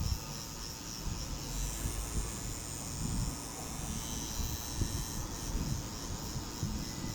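Tattoo machine running with a steady mechanical buzz and drone.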